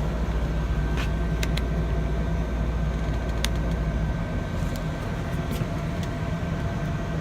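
Steady low mechanical hum of running machinery, its deepest tone dropping away about four seconds in, with a few light clicks.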